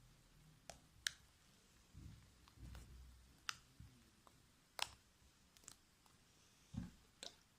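Faint, scattered sharp clicks and small pops, about seven in all, with soft low thuds around two to three seconds in: hands working sticky fluffy slime that is still too wet.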